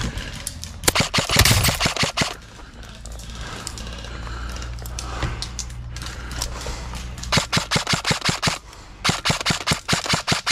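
Airsoft guns firing in rapid volleys of sharp snapping shots: one volley about a second in, then repeated volleys in the last three seconds.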